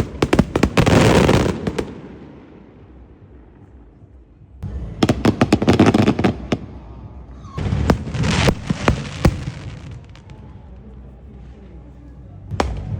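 Aerial fireworks shells bursting in loud barrages of dense crackling and popping, three volleys separated by quieter lulls, with a new volley starting near the end.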